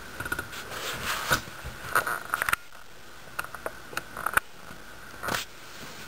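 Irregular clusters of sharp clicks and soft knocks, with a short rushing noise about five seconds in.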